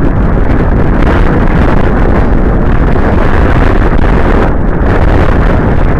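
Heavy wind buffeting the microphone of a camera mounted on a grounded quadcopter: a loud, steady rumble.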